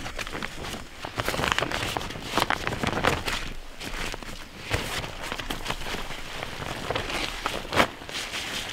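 Tarp rustling and crinkling as it is handled, lifted and folded, with irregular sharp crackles and a louder snap near the end.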